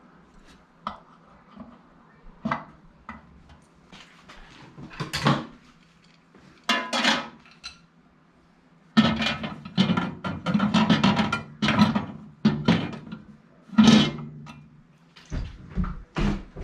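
Clinking and knocking of dishware and microwave parts being handled, scattered at first and then a dense run of clatter from about nine seconds in, over a faint steady low hum.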